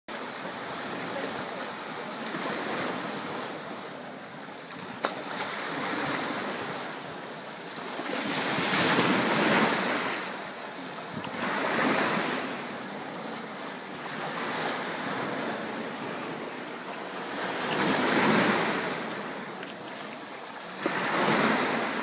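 Small waves washing into shallow water at the shoreline and breaking into foam, swelling louder every few seconds. A single sharp click about five seconds in.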